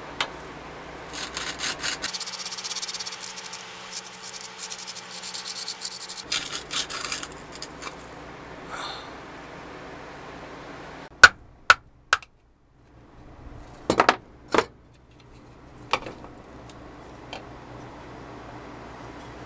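Quick scratchy rubbing and scraping as the plastic wheel and rubber tyre of a rusty 1970s Tonka toy forklift are handled, followed by three sharp taps and later a short cluster of clicks.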